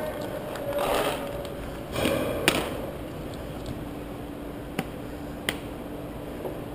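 Paintball marker shots: one sharp pop about two and a half seconds in and two fainter pops near five seconds, with two short rushes of noise from gear moving against the helmet mic about one and two seconds in.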